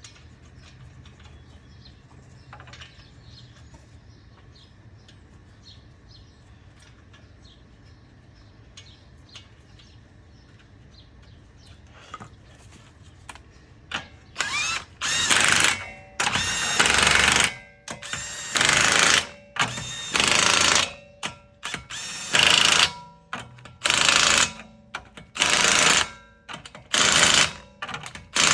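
Impact wrench (impact gun) running the wheel's lug nuts down tight, in a string of short loud hammering bursts about once a second that start about halfway in. Before that, only faint clicks and handling noise.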